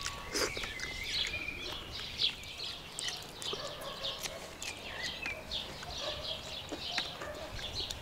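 Small birds chirping and twittering without pause in many quick, short notes, with a few clicks here and there.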